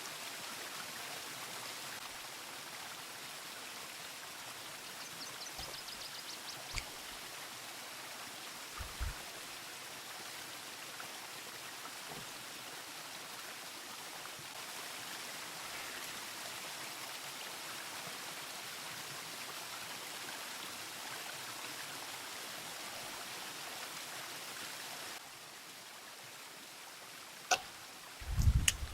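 Mountain river rushing steadily. Near the end the sound drops to a quieter level and is followed by a few sharp clicks and a brief low thump.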